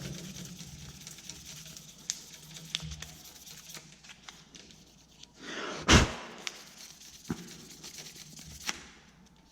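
Fine sandpaper scratching lightly over a pocketknife's plastic handle scales, with scattered clicks of handling and one louder rustle and knock about six seconds in.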